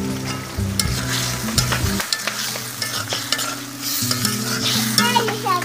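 Shing fish pieces frying and sizzling in a spiced onion masala in a karahi, being stirred, with repeated short clicks and scrapes of the utensil against the pan.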